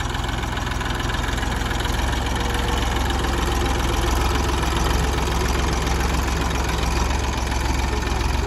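Massey Ferguson 241 DI tractor's three-cylinder diesel engine running steadily at low speed while pulling a rear implement through the soil. It gets slightly louder around the middle as the tractor passes close by.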